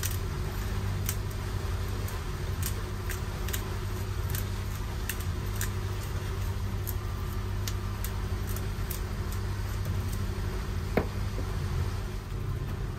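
A boat engine running steadily at idle, with faint, irregular clicks from a hand pepper grinder cracking black peppercorns; a sharper single click comes near the end.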